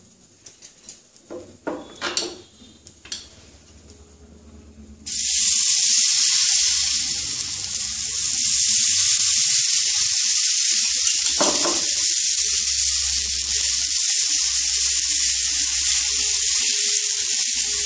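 A few soft clicks, then about five seconds in a loud, steady sizzle starts suddenly: pancake batter frying on a hot, oiled nonstick pan. There is a single sharper tap about halfway through.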